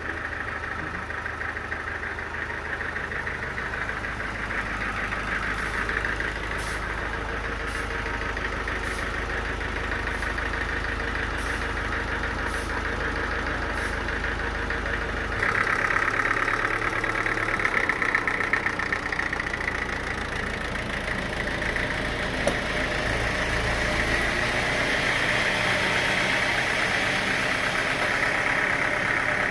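Sawmill machinery running steadily with an engine hum. About halfway through the sound shifts abruptly and becomes louder, with less deep rumble.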